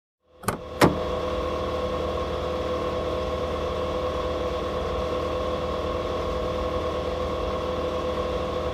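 Two sharp clicks, then a steady mechanical hum with a few fixed tones.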